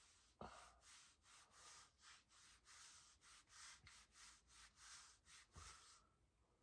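Near silence between hiccups: faint hiss, with a soft click about half a second in.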